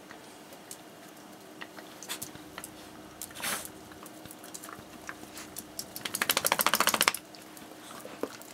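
Small dogs moving about on dog beds and bedding: scattered soft clicks and rustles, then a fast, even rattle lasting about a second, about six seconds in.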